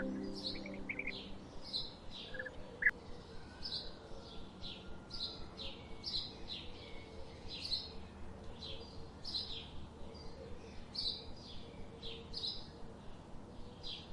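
A small songbird chirping over and over, short high chirps repeated at an even pace about once a second, with a few lower notes around two to three seconds in. A held music chord fades out in the first second.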